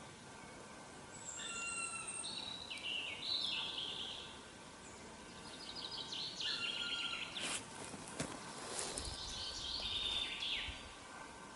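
Songbirds singing in short repeated phrases, several seconds apart, with a few soft knocks or rustles from walking around the middle.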